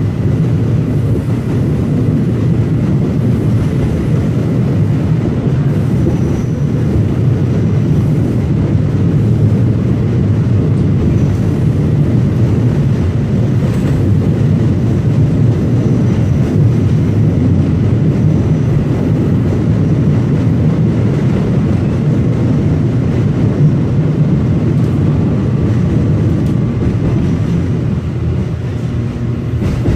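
Line 4 subway train running at speed, heard from inside the passenger car: a steady, deep rumble of the wheels on the rails.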